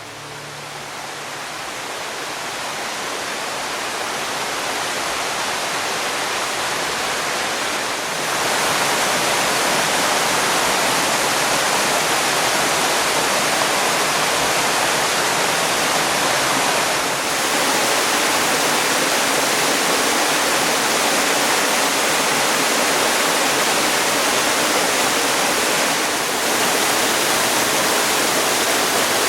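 Waterfall on a mountain stream: a steady, loud rushing of falling water that fades in over the first few seconds, with brief slight dips about 8, 17 and 26 seconds in.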